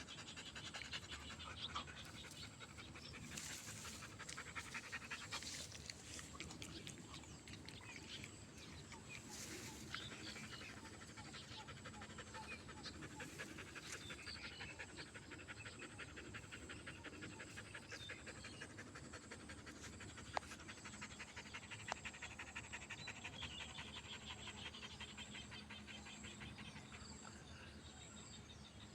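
A tired dog panting steadily and faintly, with two sharp clicks about two-thirds of the way through.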